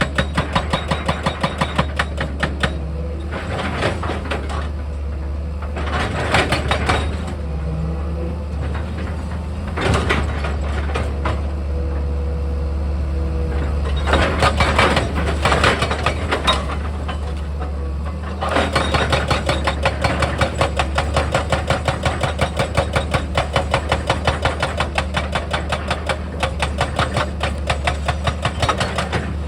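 Excavator's diesel engine running steadily under a fast, regular knocking of about three strokes a second, which stops for a long stretch in the middle, where louder, uneven bursts of mechanical noise come through.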